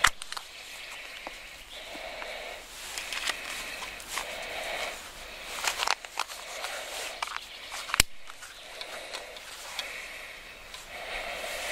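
Small plastic bait box handled while a waxworm is threaded onto a fishing hook: faint fiddling sounds with two sharp clicks, one at the very start and a louder one about eight seconds in, typical of the box lid snapping.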